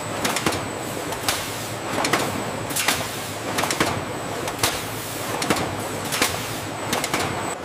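Packaging-line machinery running: a steady mechanical clatter with a sharp clack roughly every second and a thin high whine.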